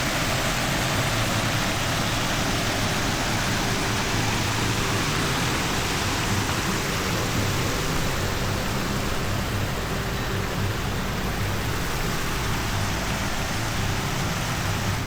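Steady, even rushing noise that starts and stops abruptly, with background music faintly underneath.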